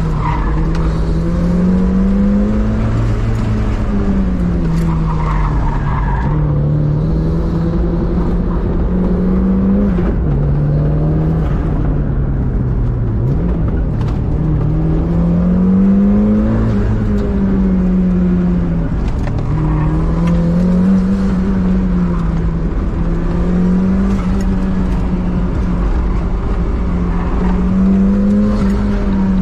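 Turbocharged 1.6-litre four-cylinder engine of a 1990 Mazda Miata, heard from inside the cabin, revving up and down over and over as the throttle is worked hard through an autocross course. The tyres squeal briefly a couple of times in the first few seconds.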